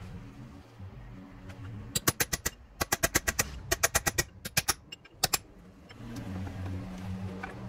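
Hammer blows on the steel head of an axe clamped in a bench vise, knocking to free the loose head from its handle. About twenty sharp metallic strikes come in quick runs, starting about two seconds in and stopping after about five seconds.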